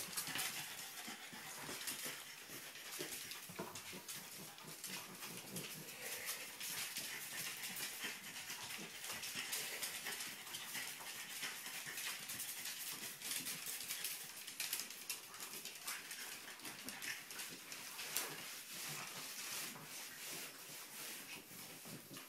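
French bulldog puppies playing with a ball on a wooden floor: many quick clicks and scrabbles of claws and small knocks, with puppy vocal sounds.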